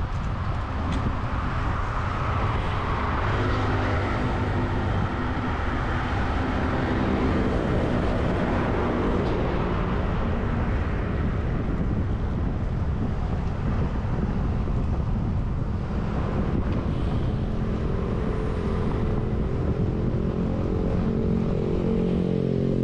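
Wind rushing over the microphone during a road bike ride, with motor traffic alongside. The hum of a vehicle engine grows louder in the last few seconds.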